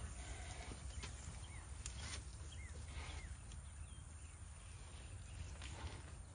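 Two young African elephants sparring head to head: occasional knocks and scuffs from their feet and bodies on twigs and leaf litter over a low background rumble. A few short bird chirps come about two to three seconds in.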